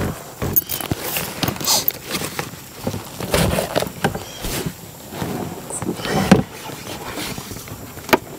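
Irregular splashing and sloshing of someone wading in shallow river water beside a canoe, with a few sharp knocks.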